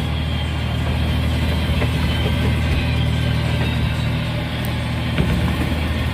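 Boat engine running steadily at a constant speed, with a low, even hum and a few faint clicks of handling on top.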